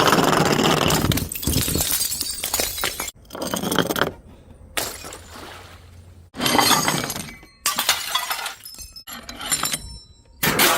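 Glass bottles smashing and shattering, several separate breaks one after another with abrupt cuts between them, some followed by the ringing and tinkling of glass shards.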